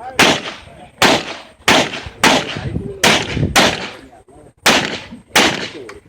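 Handgun shots on a competition stage: eight shots, fired mostly in pairs with a longer pause after the sixth, each with a short ring of echo.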